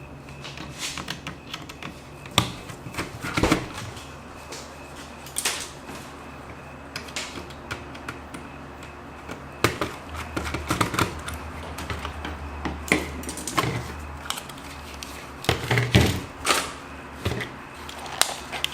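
Tools and small hard laptop parts being handled and set down on a work surface: irregular clicks and knocks over a low steady hum.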